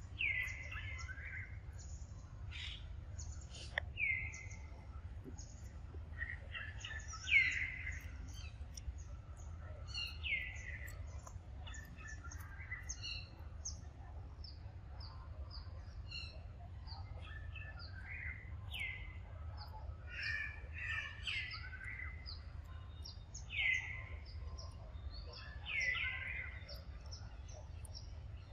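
Wild birds calling: a falling whistled call repeated every few seconds, the loudest about seven seconds in, over a scatter of short high chirps.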